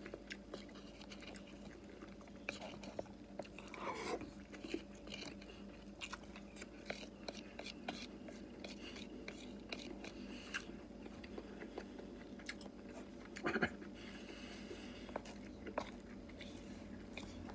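A person eating white rice with chopsticks: chewing and small mouth sounds, with scattered light clicks of the chopsticks against the bowl over a faint steady hum.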